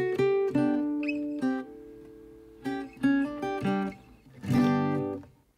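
Background music on acoustic guitar: picked notes, then a final strummed chord about four and a half seconds in that rings out and dies away as the piece ends.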